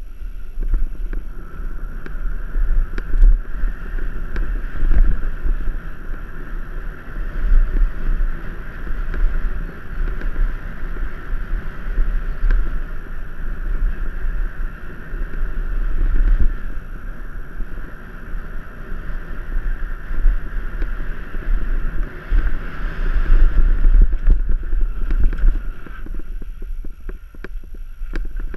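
Mountain bike ridden fast down a dirt singletrack: wind buffets the camera microphone while the tyres rumble and the bike rattles over the trail. A steady high buzz runs along with it and drops out near the end.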